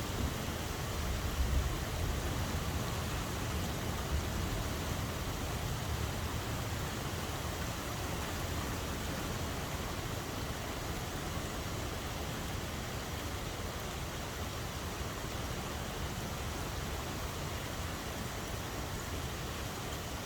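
Steady rain falling, an even hiss with no single drops standing out. Underneath is a low rumble, somewhat stronger in the first two seconds.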